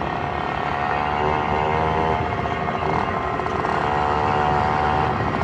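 Hercules Prima 6 moped's 50cc two-stroke engine running steadily under way, a fairly loud, even whine with slight shifts in pitch.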